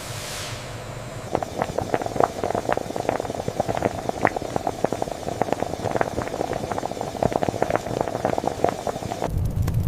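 Factory machinery running, with a dense, irregular clatter of sharp clicks starting about a second in and cutting off near the end, where a low rumble takes over.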